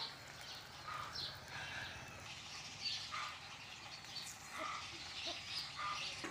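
Scattered short, high chirps and squeaks from animals, over a faint steady low hum.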